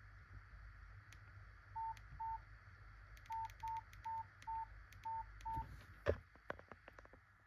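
Nokia 8800 Arte mobile phone's keypad beeping as its keys are pressed: eight short beeps at one pitch, two and then six in quicker succession, with faint clicks among them. A louder click comes about six seconds in.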